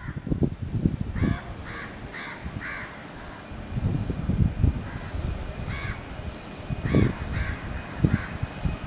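Crows cawing in runs of short harsh calls, over a low, gusty rumble. A faint steady whine comes in about two-thirds of the way through.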